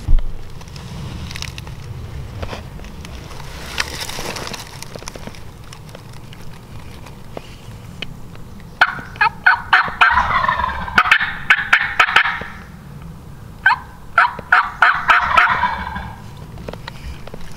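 Eastern wild turkey gobbler gobbling loudly and close, twice: a long rattling gobble about nine seconds in, then a shorter one soon after.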